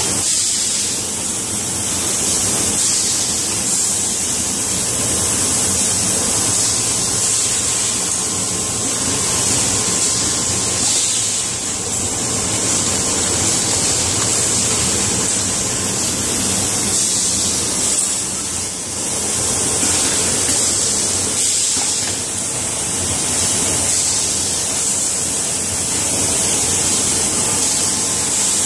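Automatic juice bottle filling and foil-sealing machine running: a steady hiss with a faint low hum underneath.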